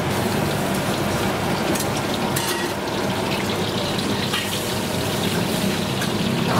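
Food frying and sizzling in hot oil: a steady hiss with a few faint clicks, over a low steady hum.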